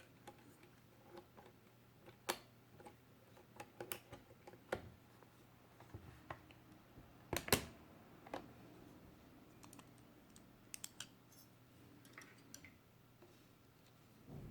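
Faint, irregular keystrokes on a Ducky ONE 2 Mini 60% mechanical keyboard with Cherry MX Silent Red switches and PBT keycaps, soft clicks spaced unevenly, with a louder double knock about halfway through.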